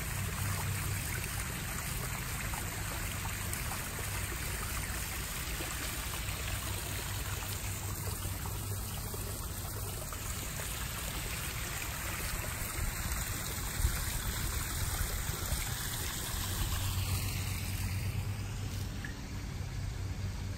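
Small rock waterfall splashing steadily into a backyard koi pond, with a low steady hum underneath.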